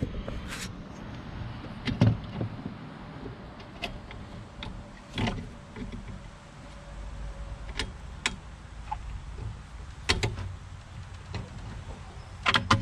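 Plastic air cleaner housing and its metal intake tube being handled and worked onto a mower engine's intake: irregular sharp clicks and knocks, about eight of them, over a low rumble.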